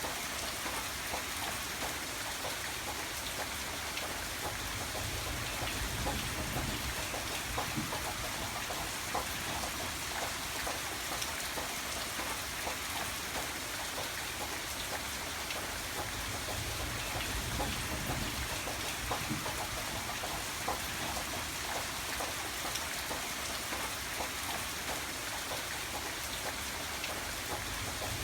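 Steady rain falling on a surface, many separate drops ticking through it, with a low rumble swelling up twice.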